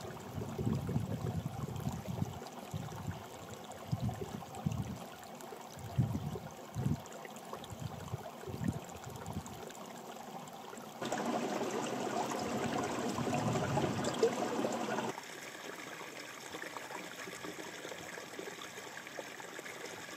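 Shallow mountain stream trickling over rocks. Gusts of breeze rumble on the microphone in the first half. About eleven seconds in, the water sound suddenly turns louder and fuller for about four seconds, then drops back to a quieter trickle.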